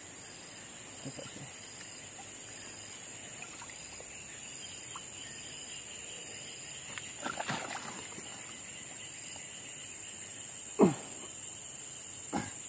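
Insects chirping steadily, with a short chirp repeating about every two-thirds of a second. A few brief sharp sounds cut in: a small cluster about halfway through, the loudest one about eleven seconds in, and another just before the end.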